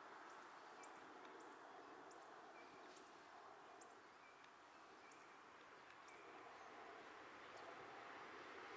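Near silence: faint outdoor ambience, a soft steady hiss with small high chirps repeating irregularly, about one or two a second.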